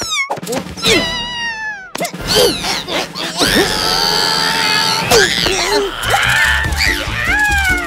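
Cartoon cat yowling and screeching while it is pulled back and forth, with high cries that slide downward in the first two seconds. These give way to a loud stretch of shrill screeching, over background music.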